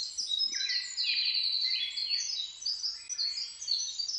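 Birdsong: several birds chirping at once, a dense run of short, high, overlapping notes.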